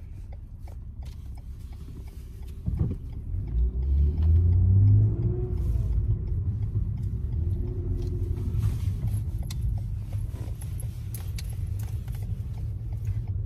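Low, steady engine and road rumble heard inside the cabin of a moving Lexus. There is a single knock about three seconds in, and the rumble swells louder for a moment around four to five seconds.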